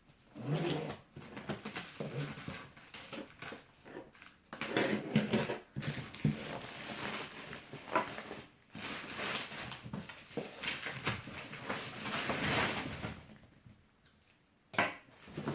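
Cardboard shipping box being handled: irregular rubbing, scraping and knocks of cardboard, with a short lull near the end before one sharp knock.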